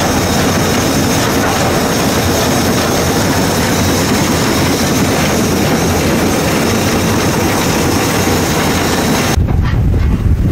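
GNR N2 0-6-2 tank steam locomotive running on the line, heard from the footplate: a loud, steady, dense noise of the engine working and the wheels on the rails. About nine seconds in the sound changes abruptly to a deep wind rumble on the microphone, with much less treble.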